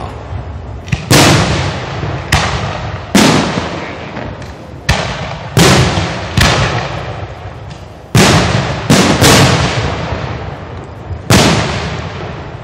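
Aerial firework shells bursting: about ten loud bangs, irregularly spaced a second or so apart, each trailing off in a long rumbling echo.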